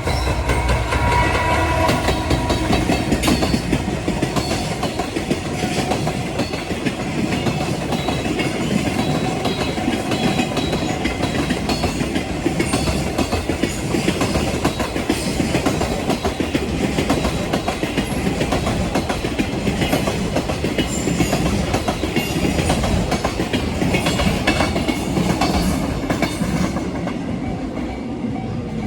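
Container freight train passing close by over a level crossing, its wagon wheels clattering rhythmically over the rail joints.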